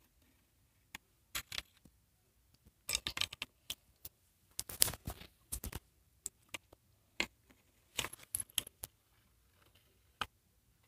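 Scattered small clicks, taps and brief rustles of small objects being handled, in irregular clusters with short pauses between.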